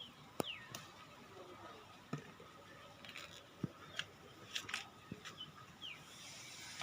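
Faint bird chirps, a few short falling calls, over scattered light clicks and rustles.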